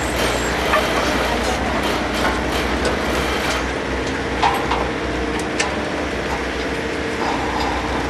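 A work machine's engine running steadily at a low pitch, with a few short sharp clanks and clicks from work going on around it.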